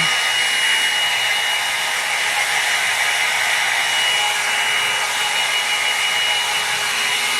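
Hair dryer running steadily: a constant rush of blown air with a thin, steady high whine.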